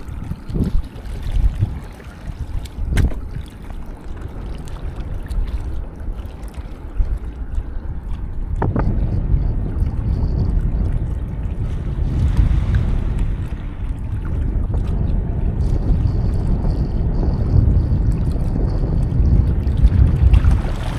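Wind buffeting the microphone, a loud low rumble that grows stronger about halfway through, with a couple of light knocks.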